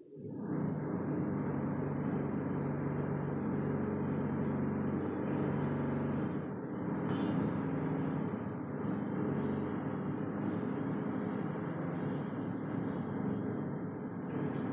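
A machine starts up suddenly and runs with a steady, even low hum. There is a brief high-pitched noise about halfway through.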